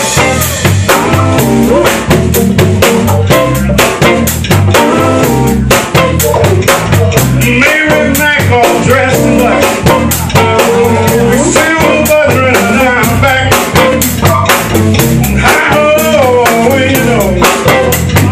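Live blues band playing: a drum kit with rimshots and bass drum keeps a steady beat under bass and guitar. A bending melody line rises over the band from about halfway on.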